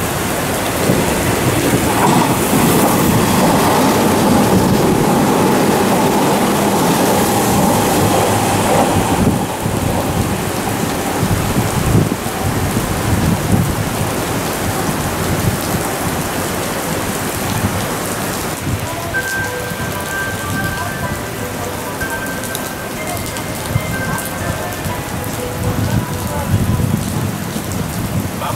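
Heavy rain pouring down over an elevated railway station while a Hanshin train passes through at speed. The train's rumble and spray swell over the rain during the first several seconds. Later, faint steady whining tones sound under the rain.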